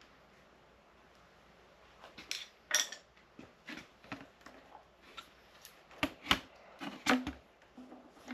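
Irregular clinks and clatters of metal parts and tools being handled and set down, starting about two seconds in.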